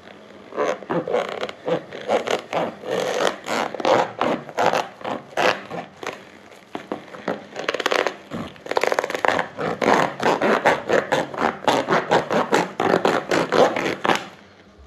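Thin hand saw blade rasping back and forth through a sneaker's rubber sole and fabric upper, about three strokes a second, with a short break about halfway.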